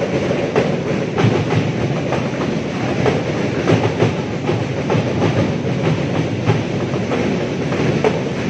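A large crowd of school football supporters singing a chant together to a steady beat of sharp, regular hits, echoing in a big indoor sports hall.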